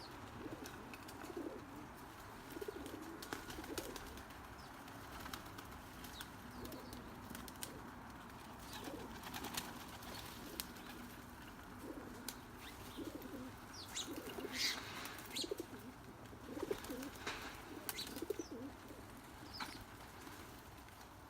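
Doves cooing over and over in short low calls, with scattered sharp clicks and a few higher bird calls about two-thirds of the way in.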